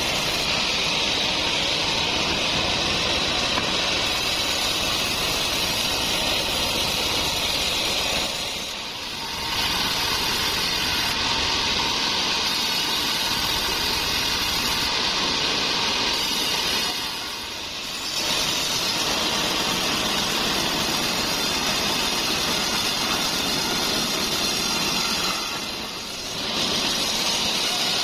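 Large band saw mill running and cutting through trembesi (rain tree) wood, with its stationary engine running alongside, making a loud, steady noise. The noise dips briefly three times, about 9, 17 and 26 seconds in.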